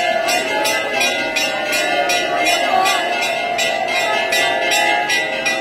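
Temple bells ringing rapidly and without pause, about four strokes a second, with voices beneath.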